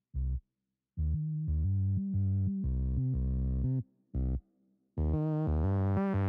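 Background synthesizer music: held electronic chords over a deep bass, played in short phrases that stop dead for brief silent breaks, about a second in and again around four seconds in.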